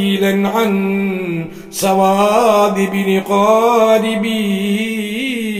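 A man's voice chanting a devotional Arabic-Malayalam verse addressed to the Prophet, holding long drawn-out notes at a steady pitch with wavering turns on them.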